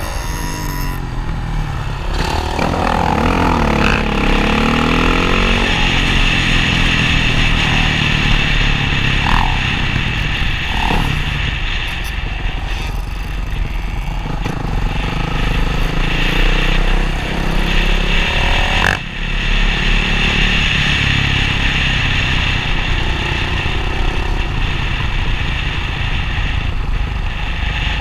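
Dirt bike engines revving, their pitch rising and falling over and over, over a continuous engine noise.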